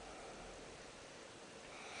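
Faint, airy breathing from a sleeper in the pause between snores.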